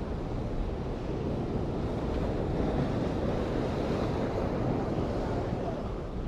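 Sea surf washing against a concrete tetrapod breakwater, with wind buffeting the microphone; a steady rushing that swells a little in the middle.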